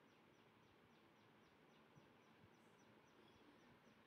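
Near silence: quiet room tone with faint, rapid high chirps repeating in the background, about four a second.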